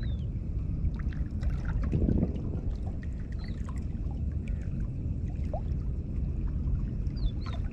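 Sea water lapping and sloshing against the rocks of a breakwater, a steady low wash that swells briefly about two seconds in, with scattered small clicks.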